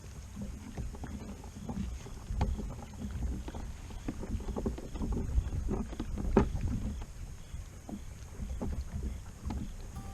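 Water lapping and splashing against the plastic hull of a Hobie Outback fishing kayak, with irregular small knocks and thumps on the hull; one louder knock comes a little past halfway.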